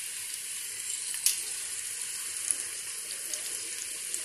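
Boiled chickpeas sizzling in hot oil in a steel pot, a steady hiss, with one light tick about a second in.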